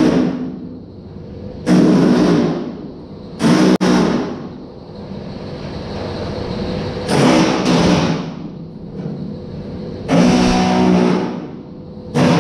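Handheld pneumatic tool on the sheet steel of a car's rear quarter panel, run in short bursts of under a second to about a second, about six times, each with a steady buzzing pitch. There is one sharp click about four seconds in.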